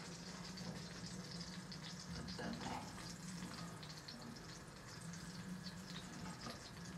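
Garlic and coriander sizzling in melted butter in a frying pan, a steady fine crackle: the garlic-butter ta'liya being fried for molokhia. A steady low hum runs underneath.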